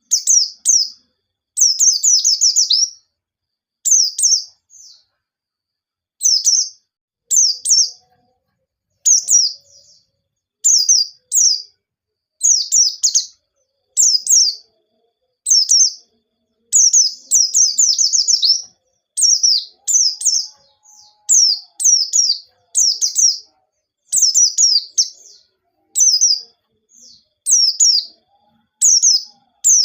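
White-eye (pleci) singing loudly in short, rapid bursts of high, downward-sweeping notes, phrase after phrase with brief pauses between them.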